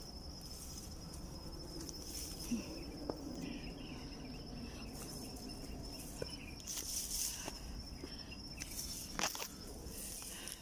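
A steady, high-pitched insect call holding one unbroken tone, over soft footsteps and rustling through tall grass that grow louder about seven seconds in, with a short brush of leaves near nine seconds.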